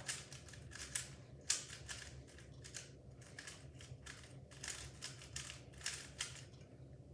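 Irregular sharp clicks and crackles, a few a second, from something being handled.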